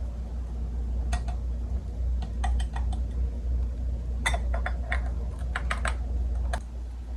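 Scattered light clicks and taps of plastic and metal parts being handled on an espresso machine, some in quick clusters, over a steady low hum.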